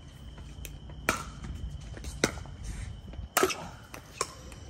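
Pickleball paddles hitting a hard plastic ball in a rally: four sharp pops about a second apart, the third the loudest.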